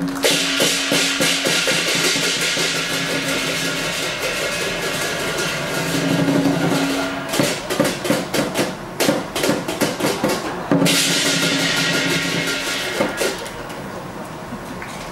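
Lion dance music: a big drum beating fast with clashing cymbals over it. The cymbal wash breaks off a few times and turns quieter over the last couple of seconds.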